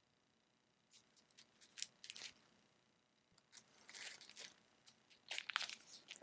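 Clear plastic kit packaging crinkling in the hands as one packaged kit is set down and another picked up, in three short bursts of rustle about two, four and five and a half seconds in.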